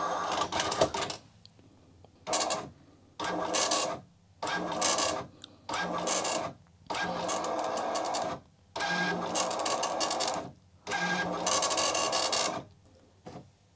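Commodore MPS 1500C colour dot-matrix printer printing, its print head buzzing across the paper in about eight passes of a second or so each, with short pauses between them.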